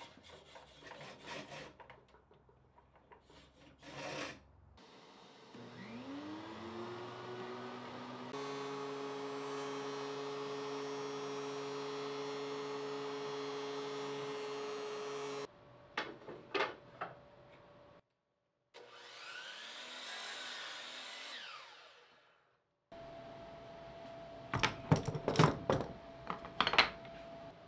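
Woodworking shop sounds in quick succession. Light knocks come first, then a power tool's motor spins up and runs steadily for several seconds and cuts off abruptly. After some clicks there is a whine that rises and falls, and near the end a run of loud sharp knocks over a steady hum.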